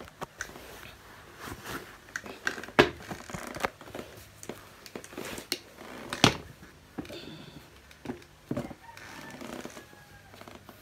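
White high-top sneakers being pulled off by hand: scattered rustling and creaking of the shoes and clothing with many small clicks, and two sharp knocks, one about a quarter of the way in and one just past halfway.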